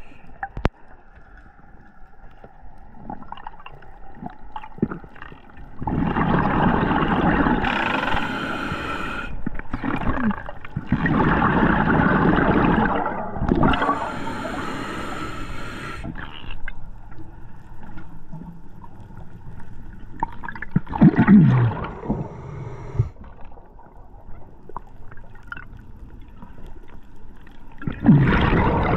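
Scuba diver breathing through a regulator underwater: bursts of exhaled bubbles gurgling, alternating with the hiss of inhaling, a few breaths several seconds apart. A couple of the exhalations carry a low, falling buzzing tone.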